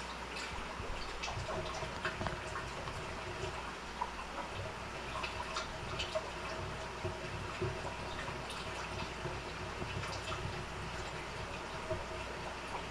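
Fish room ambience: aquarium water trickling and dripping over a steady equipment hum, with small irregular drips and ticks throughout.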